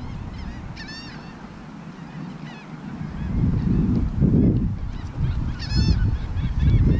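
Birds calling: a few short, harsh, arched calls about a second in and again near six seconds, over a low rumble that grows louder after about three seconds.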